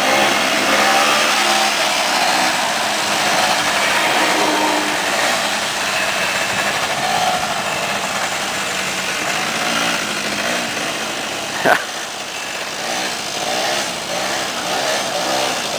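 Small engine of a Rokon trail motorcycle running, its pitch wavering up and down as the revs change, with one sharp click about twelve seconds in.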